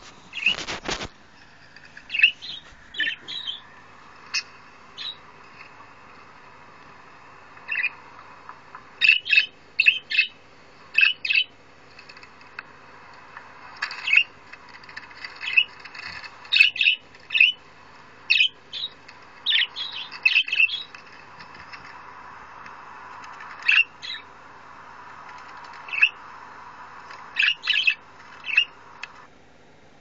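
Budgerigar chirping: many short, high chirps and calls, some single and some in quick runs of three or four, with a brief knock near the start.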